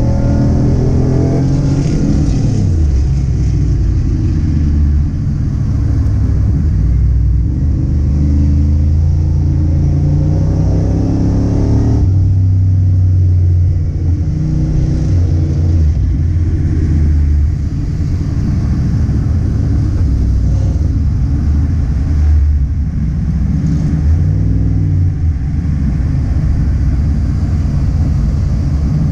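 A car engine running loud and hard, its pitch shifting up and down with the throttle, with an abrupt change in its note about twelve seconds in.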